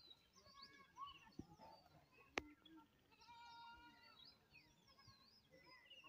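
Faint outdoor ambience: small birds chirping, a single sharp click a little over two seconds in, and one long, steady call about halfway through.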